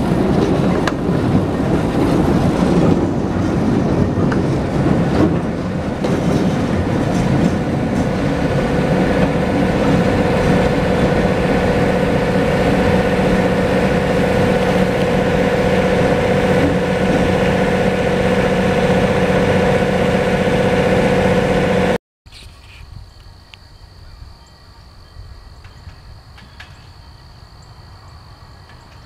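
Diesel locomotive and passenger train passing close by and moving on, the engine running loud with the cars rolling over the rails, and a steady drone from about eight seconds in. About 22 seconds in it cuts off suddenly to a much quieter outdoor background with a faint steady high whine and a few ticks.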